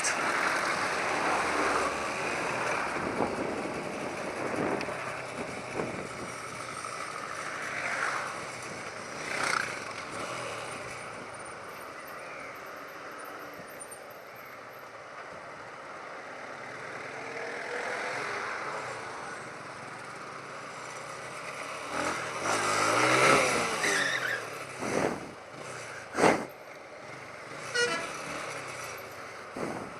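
Motorcycle riding in road traffic: steady wind and road noise with the motorcycle's engine running underneath, and vehicle horns tooting several times.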